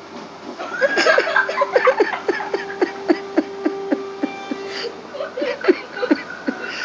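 A person laughing in quick, repeated pulses, about three a second.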